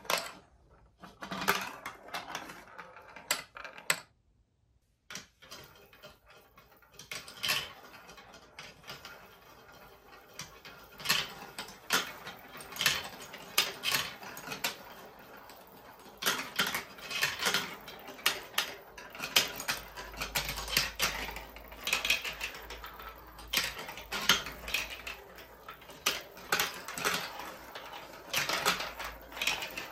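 Balls rolling and clattering through a plastic block marble-run course: many sharp clicks and knocks as they drop onto and hit the plastic tracks, with rolling in between. There is a brief pause about four seconds in.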